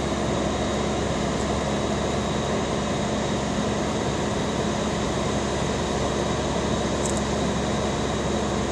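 Steady mechanical drone of running engines, with an even hiss over it that stays the same throughout.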